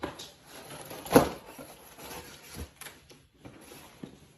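Cardboard pizza box handled and opened amid rustling bedding, with a sharp knock about a second in and a few softer taps.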